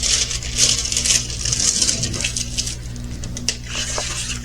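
Plastic packaging of a diamond-painting kit crinkling and rustling as it is handled, in short irregular bursts with a few light clicks.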